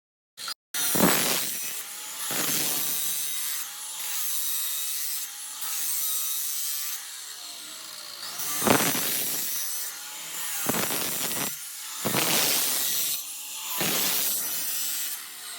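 A power tool cutting or grinding a workpiece in repeated passes, each one to two seconds long, with a wavering squeal in the middle passes.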